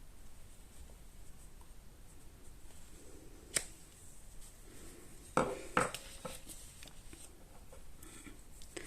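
Light handling on a craft table while stamping: a sharp click about three and a half seconds in, then two knocks close together about halfway through, over faint rustling.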